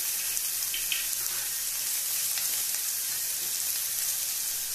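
Chopped onions with whole spices frying in hot oil in a nonstick kadhai: a steady sizzling hiss.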